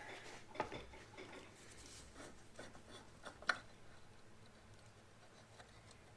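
Faint handling noises: light rubbing and a few small clicks and taps, the sharpest about half a second in and again a little after three seconds in.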